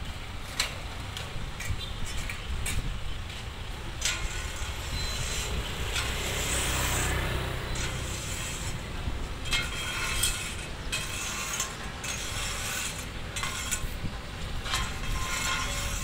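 Heavy diesel road-building machinery running with a steady low rumble, with scattered metallic clanks and knocks.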